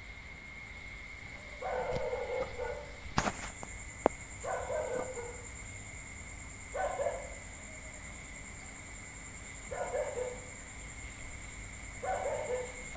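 A dog barking, five barks spaced two to three seconds apart, each trailing down in pitch. A sharp click comes about three seconds in.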